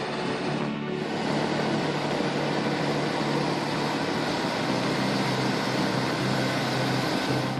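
Steady engine and machinery noise, with a brief drop about a second in.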